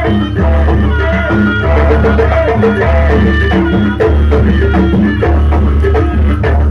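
Loud live jaranan accompaniment music from an East Javanese ensemble: steady drumming and percussion strikes over a repeating melody and a heavy, pulsing bass.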